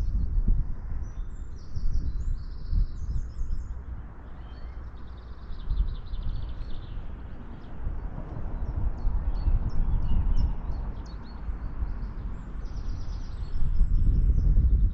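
Wind buffeting the microphone in uneven gusts, with small birds singing and chirping in short, repeated phrases.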